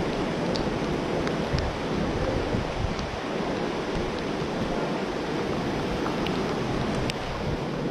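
Steady rushing storm wind, with gusts buffeting the microphone as a low rumble and a few faint ticks.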